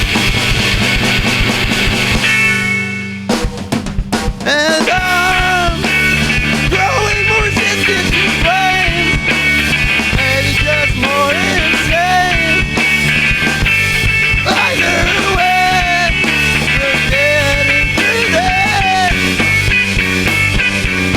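Punk rock band playing live on drums, electric guitar and bass. About three seconds in the band breaks on a held chord and a few drum hits, then comes back in at full tilt with a melodic line over the driving beat.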